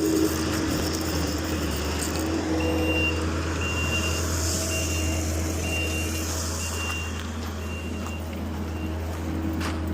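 Mini excavator's diesel engine running steadily, with its travel alarm beeping six times, about once a second, while the machine moves on its tracks.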